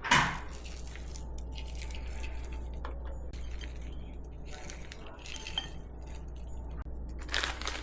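Spoons and dishes clinking and tapping while food is put into a bowl, with a louder clatter at the start and another near the end, over a steady low hum.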